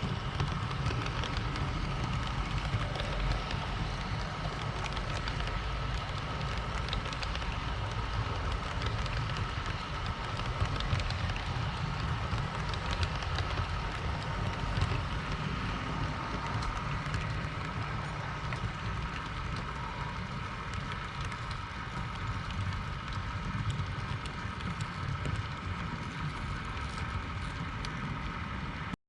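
HO-scale model TGV trains running on the layout: a steady rumble of wheels on the track with a faint whine from the electric motors.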